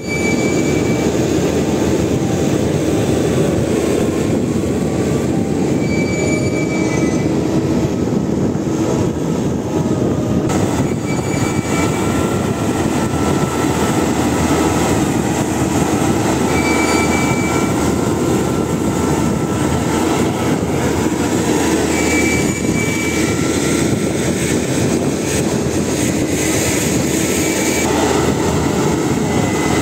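Tesmec conductor tensioner's engine running steadily under load while it pays out conductor. A short, high squeal recurs about every five to six seconds.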